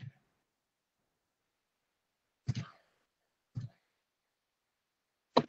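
Quiet room with three short, isolated clicks: about two and a half seconds in, a second later, and near the end. They are computer mouse and keyboard clicks picked up by the lecturer's microphone while he edits a slide.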